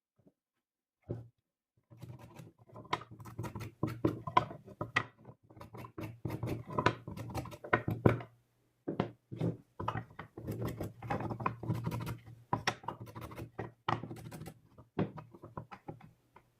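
Irregular scratching and rubbing with light knocks from hand work on wood, such as sanding or filing a piece, starting after a short silence of about two seconds.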